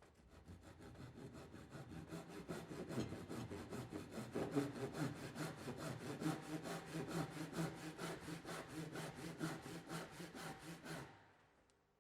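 Fine-toothed hand saw cutting along the line of a dovetail joint between new and existing timber, in quick, even strokes several times a second. The sound builds up over the first second or two and stops about a second before the end. The saw is trimming the joint line to close small gaps for a tight fit.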